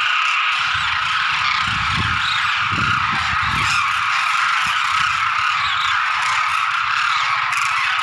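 A large flock of demoiselle cranes calling in flight: a loud, continuous chorus of many overlapping calls.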